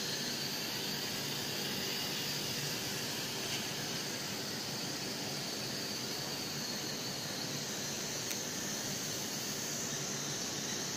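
Night Lions Tech N227 toy quadcopter's motors and propellers buzzing in flight: a steady high-pitched whine with hiss, slightly fainter in the middle while the drone is up high and stronger again as it comes back down.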